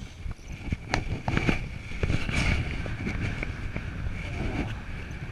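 Wind from paragliding flight rushing over the microphone, with scattered sharp clicks and a thin steady high tone underneath.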